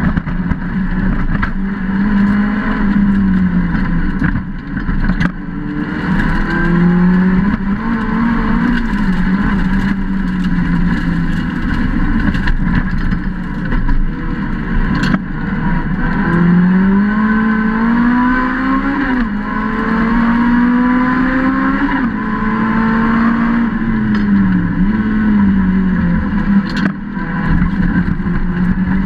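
Lotus Exige rallycross car's engine at racing speed, heard from inside the cockpit. Its pitch repeatedly climbs and then drops sharply through gear changes and lifts. A few sharp knocks strike the body along the way.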